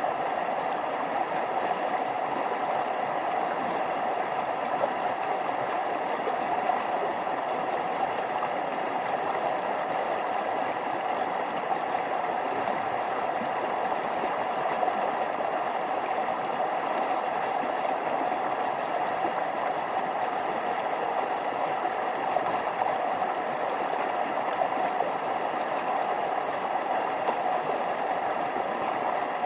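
Forest stream flowing over small waterfalls: a steady, even rush of water that never changes.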